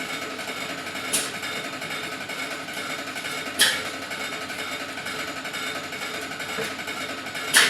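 Pouch-making machine running steadily, with three sharp hissing snaps, about a second in, a little past three and a half seconds, and near the end.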